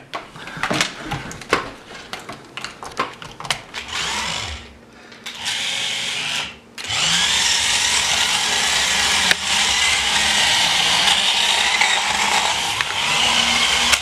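A run of clicks and knocks, then the small electric drive motors of Speed Bumpers remote-control bumper cars whirring steadily as the cars drive about, with two short breaks about five and seven seconds in.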